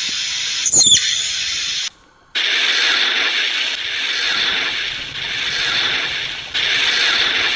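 A palm squirrel gives one sharp, high chirp that falls in pitch about a second in, over a steady hiss. After a brief silence near two seconds, an even hissing noise, with no tune or beat, fills the rest.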